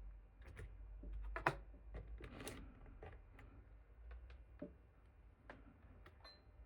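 Scattered clicks and light taps of tools and parts handled on a workbench while a transistor is removed from a washing machine's inverter power board, over a low steady hum.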